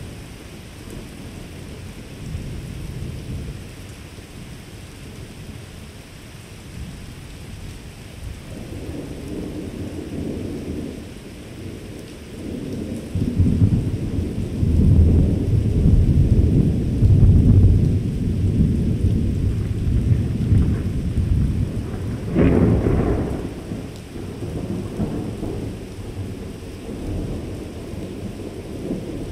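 Thunder rolling overhead: a low rumble that swells about halfway through, with a sharper clap about three quarters of the way in, then dies back to a low grumble.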